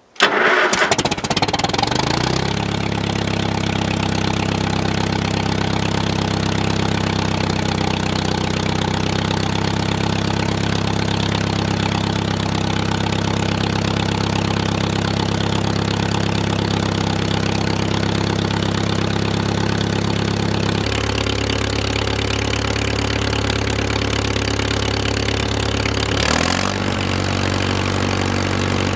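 Farmall M tractor's four-cylinder engine starting right away, running a little unevenly for a second or two, then settling into a steady idle. Its note shifts about twenty seconds in and again a few seconds before the end.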